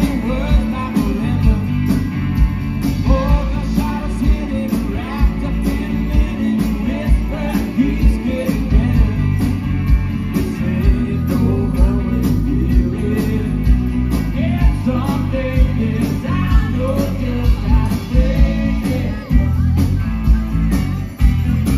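A rock band playing live and amplified: a steady drum beat under electric guitar and keyboard, with a singer's voice over the top.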